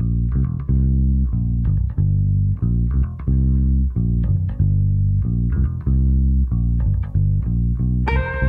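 Electric bass guitar playing a repeating blues line at the opening of a band recording, about two or three low plucked notes a second. Near the end an electric guitar comes in with held notes.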